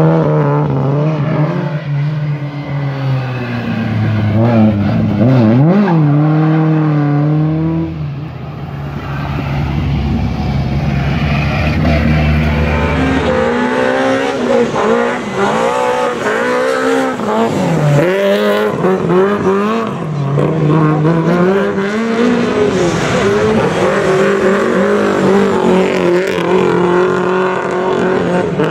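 Rally-prepared Lada saloon engines revving hard, the pitch climbing and falling again and again with throttle and gear changes as the cars race past.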